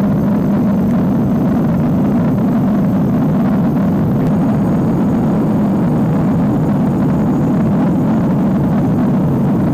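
Puma helicopter in flight, heard from inside the cabin: a steady, loud, deep rush of rotor and engine noise that does not change.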